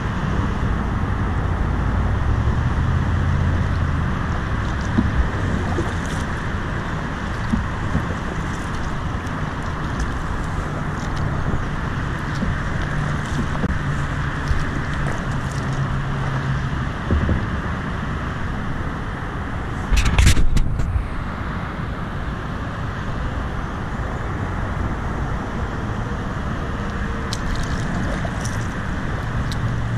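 Steady road-traffic noise from vehicles crossing a highway bridge, under a low hum that drops away after about sixteen seconds and comes back near the end. Kayak paddle strokes add occasional splashes and knocks, with one brief loud rumble about twenty seconds in.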